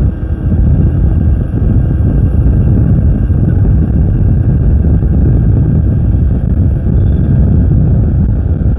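Loud, steady wind rumble on the microphone and road noise from an Ather 450X electric scooter cruising at about 46 km/h.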